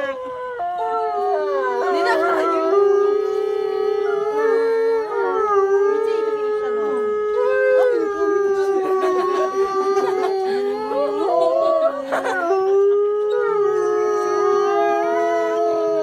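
Gray wolves howling in chorus: several long, held howls at different pitches overlap and slowly rise and fall, with no break.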